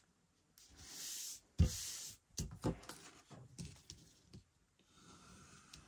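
Liquid glue being run along cardstock with a soft scratchy hiss, then a single thump and scattered light taps and clicks of paper being handled.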